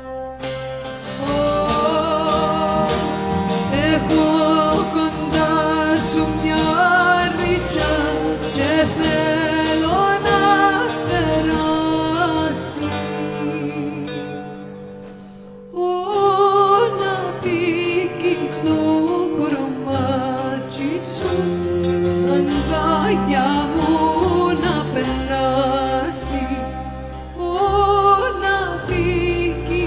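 Cypriot folk music played live on viola, laouto and bass with a female voice singing, the melody bending and sliding between notes. The music thins out and softens about 14 seconds in, then comes back at full strength about two seconds later.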